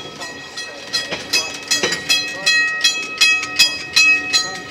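Railway level-crossing alarm bell ringing in rapid repeated strokes, each with a ringing tone. It grows louder from about a second in as the train reaches the crossing, over the sound of the carriage wheels on the track.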